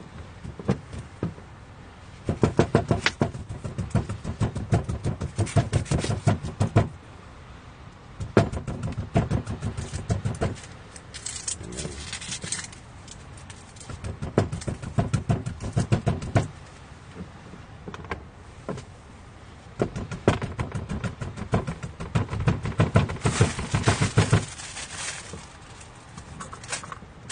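Garlic cloves being pounded with the butt of a kitchen knife's handle: rapid knocks, several a second, in bursts of a few seconds with short pauses between.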